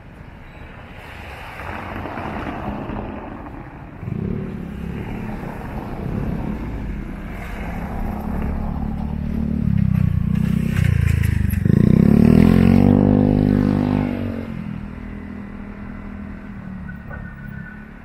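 A motor vehicle passing close by in the street, getting louder over several seconds. Its engine note rises in pitch as it accelerates away about two-thirds of the way through, then fades.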